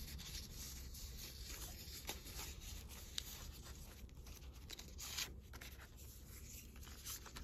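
Faint rustling and rubbing of paper decorations and stickers being moved around in a planner, with a few light taps, the clearest about five seconds in.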